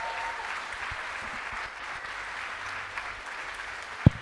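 Audience applauding steadily, with one short, low thump near the end.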